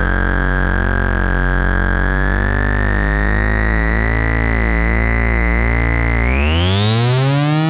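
Musonics Vanilla 5U modular analog synthesizer played from a keyboard: a deep held bass note under a pattern of changing notes, with a thin high tone on top. About six seconds in, the pitch glides steeply upward and the bass note drops away.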